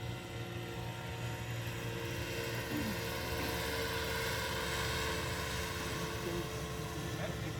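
Radio-controlled model helicopter flying, its motor and rotor giving a steady whine over a whirring rush that swells in the middle.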